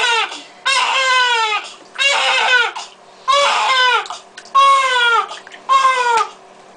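Newborn baby crying: a string of short wails, about one a second with short breaths between, each falling in pitch.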